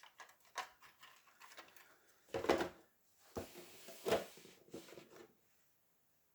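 Plastic miniature parts and packaging being handled: scattered clicks and rustling, with louder clattering bursts about two and a half seconds in and again around four seconds in.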